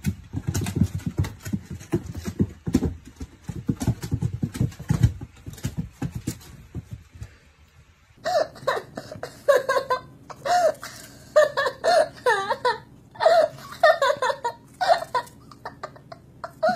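Cat vocalisations: low, rapid rumbling for the first part, then from about halfway a series of short, high, bending meows in quick clusters.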